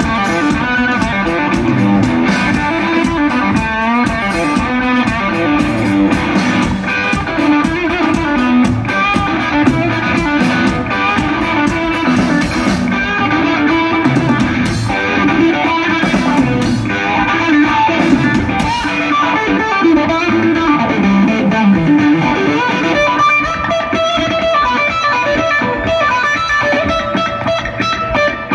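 Live rock played by an electric guitar and a drum kit, heard through the festival PA from the crowd, with no vocals. The music is loud and steady, with repeated drum and cymbal hits.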